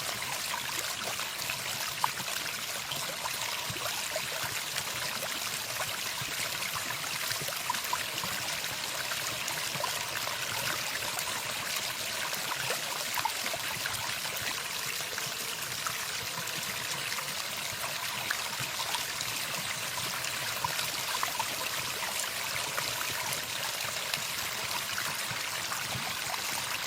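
Running water: a steady stream sound with small trickles and splashes scattered through it.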